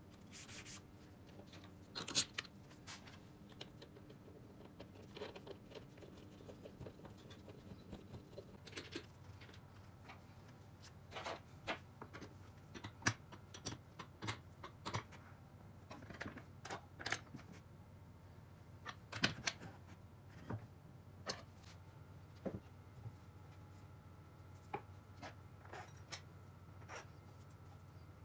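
Scattered light clicks and knocks of wooden discs and a threaded steel rod being handled in a wooden jig, with a nut on the rod being tightened with a metal wrench.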